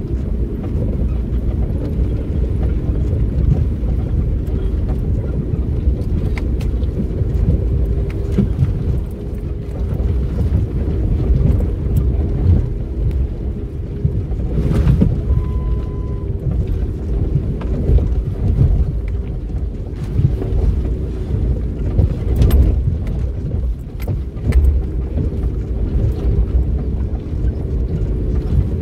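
4WD vehicle's engine running steadily in low gear as it climbs a steep, shaly track, with scattered knocks and jolts as the vehicle rolls over loose rock.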